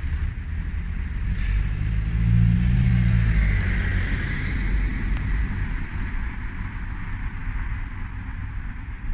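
Motorcycle engine running, revved up once about two seconds in, then dropping back to a steady idle.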